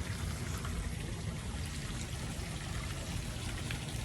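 Water running steadily in a continuous stream, as used for washing toy vehicles.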